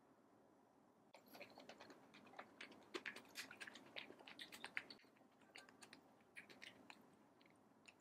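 Wooden spoon stirring and scooping thick, cheesy oatmeal risotto in a ceramic bowl: a faint, irregular run of small clicks and soft sticky sounds, starting about a second in and thinning out near the end.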